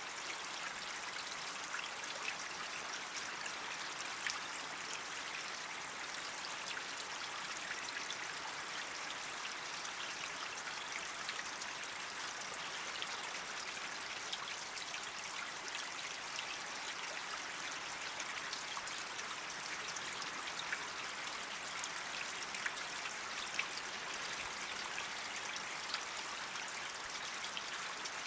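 Small forest creek running steadily: an even hiss of moving water, dotted with many tiny splashy ticks.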